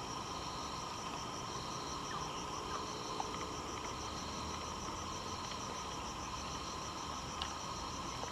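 Chorus of forest insects: several steady high trills at different pitches, one of them pulsing quickly and evenly, over a low steady hum.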